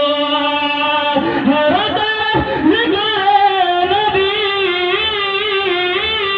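A man singing Urdu devotional verse into a microphone, amplified over loudspeakers. He holds one long, level note, then draws the voice out into a wavering, ornamented melody on a sustained vowel, without clear words.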